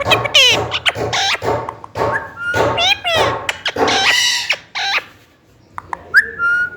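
Green parrot chattering and squawking in quick speech-like calls that sweep up and down in pitch, breaking off briefly about five seconds in, then a few clicks and a sharp rising call that holds a steady whistle near the end.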